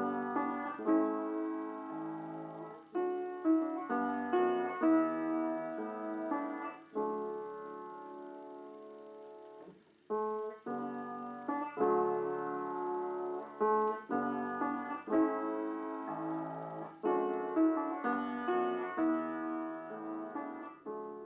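Background piano music: a run of struck notes and chords, each fading away, with a brief pause about ten seconds in.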